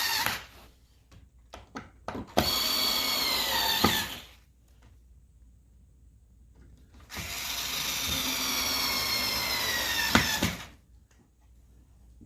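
Power drill/driver driving wood screws in two runs, its motor whine dipping slightly in pitch as each screw seats and then stopping. Small handling clicks fall between the runs.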